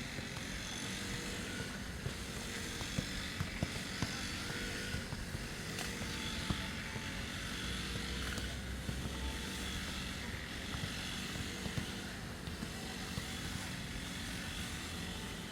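Engine of a grass-cutting machine running steadily, with scattered short knocks over it.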